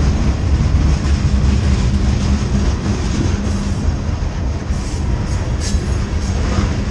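Freight train boxcars rolling past close by: a steady heavy rumble of wheels on rail, with a brief high squeak near the end.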